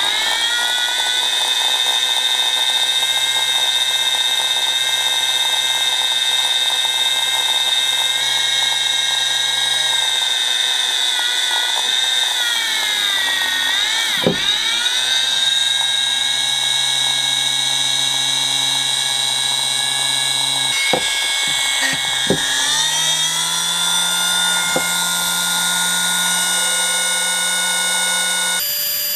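The Dumore 8226 sensitive drill press's high-speed brushed motor running with a steady high whine. About halfway through, its pitch sags and climbs back. A few light clicks come later, with another small shift in pitch.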